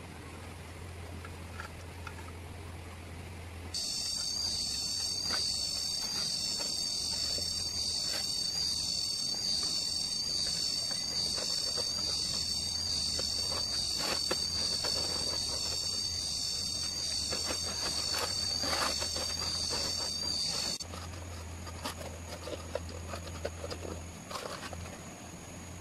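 Loud, steady, high-pitched insect drone that starts suddenly a few seconds in and cuts off suddenly near the end. Faint clicks and rustles from hands working in a clay pot and over leaves are heard under it.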